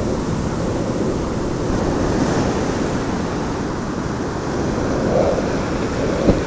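Ocean surf washing in a steady, low-heavy rush, with wind buffeting the microphone. One short knock comes shortly before the end.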